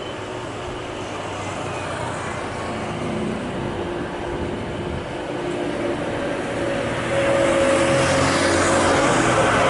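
Boeing 777-200ER's twin jet engines at take-off power as the airliner lifts off and climbs out, a steady rumbling jet noise with a few faint steady whine tones over it. It grows louder throughout, with a jump in level about seven seconds in.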